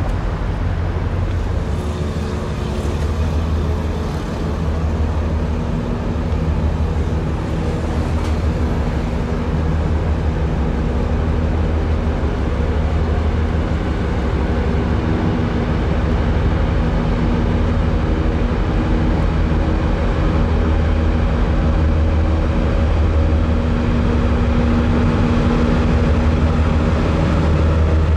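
Steady low drone of a large cruise ship's engines passing close below, with a constant deep hum, growing slightly louder past the middle.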